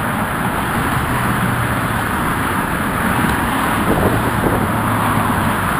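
Steady road traffic crossing the Golden Gate Bridge deck: a constant rush of tyres and engines, with a low hum that swells as vehicles pass.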